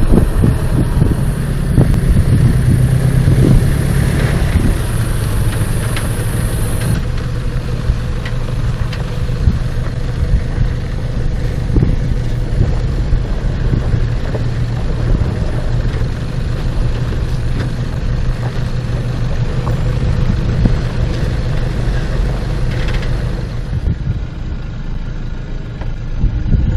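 A 4x4's engine running steadily at low revs while the vehicle crawls over a rocky off-road trail, with scattered short knocks and clunks.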